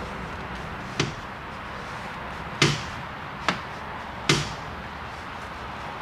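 Four sharp, irregularly spaced clicks over a steady background hiss, from the tool turning the engine over by hand.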